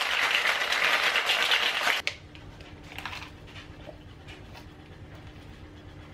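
Drink being shaken in a plastic shaker bottle: a loud, steady shaking slosh that stops abruptly about two seconds in. After that come a few faint gulps as the drink is swallowed.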